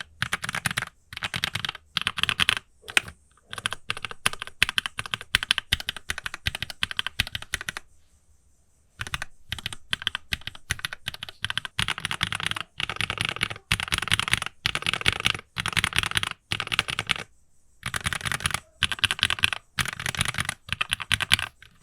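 Typing on a mechanical keyboard with Gateron Red linear switches: fast runs of keystroke clicks, broken by a pause of about a second around eight seconds in and a shorter one near the end. Recorded in a sound-dampened closet.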